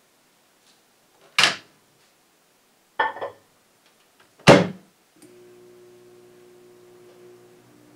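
Dial-timer microwave oven: a clack, a short clatter of a dish being set inside, and a loud thunk of the door shutting, then about a second later the oven starts and runs with a steady low hum as it heats butter to melt it.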